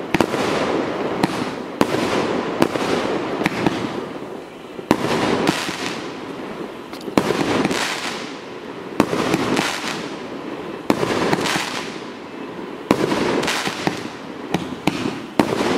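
1.2-inch 138-shot fireworks cake firing in sequence: sharp reports about once a second, each followed by a fading hiss from the shot's tail and burst.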